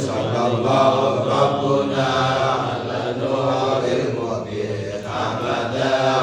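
A group of men chanting Islamic prayers together in a continuous, droning unison recitation.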